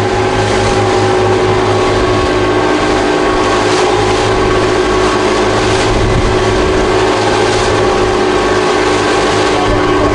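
Motorboat engine running steadily at cruising speed, with water and wind noise; its pitch eases down slightly near the end.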